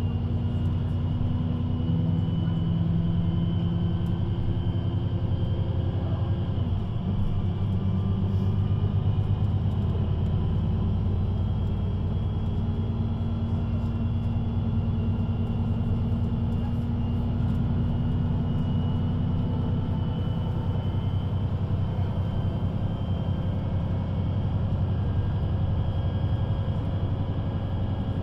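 VDL Citea LLE 120 city bus driving, its engine and drivetrain running steadily with a low hum and rumble. About seven seconds in there is a brief dip and a drop in pitch before the note settles again.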